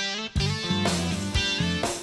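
Guitar-led end-screen music, with a strummed guitar over a low, steady bass part. It grows fuller and louder about a third of a second in.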